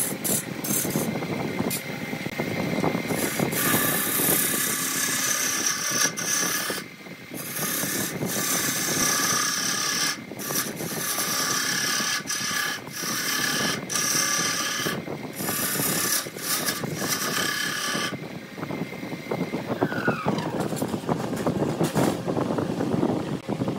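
Wood lathe turning a redwood blank while a hand-held turning chisel cuts into it: a continuous coarse scraping over the running lathe, broken by brief lifts of the tool about 7 and 10 seconds in. After about 18 seconds the cutting gives way to a quieter, lighter sound.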